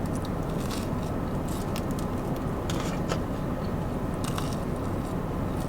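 Close-up chewing and mouth sounds of someone eating, with scattered short crunchy clicks, over a steady low hum.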